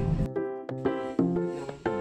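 Background music: a melody of separate, sharply struck notes, with the heavy bass dropping out about a quarter second in.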